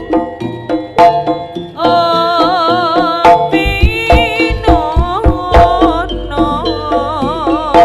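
Live Javanese jaranan music: rapid hand-drum strokes and deep low beats under a sustained, wavering melody line.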